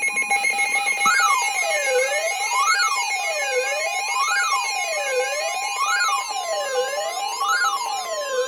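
Electronic alert siren for an Emergency Alert System tornado warning: a tone wails up and down about every second and a half, over a steady chord of alert tones.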